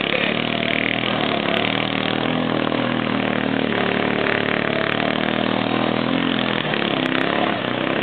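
ATV engines running steadily as quad bikes ride through a shallow creek, over an even wash of moving water.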